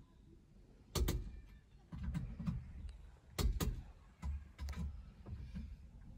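A few short, sharp clicks of a click-type torque wrench on the wheel-spacer bolts, set to 130 N·m, muffled as heard from inside the car's cabin. There is a pair close together a little past the middle, and a low rumble between them.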